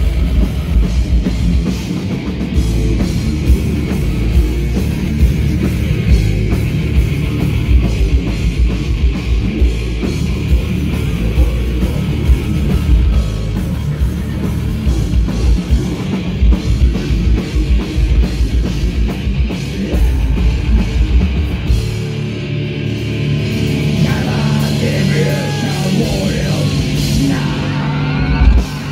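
Heavy metal band playing live, with fast drums and distorted guitars. About two-thirds of the way in the drums and deep bass drop out, and the guitar carries on with held and bending notes.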